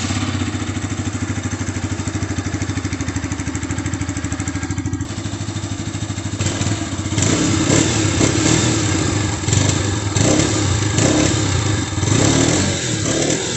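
Bajaj Pulsar RS 200 BS6's single-cylinder engine, just started and still cold, idling steadily through its underbelly exhaust. From about seven seconds in it is revved several times with the throttle, louder and uneven.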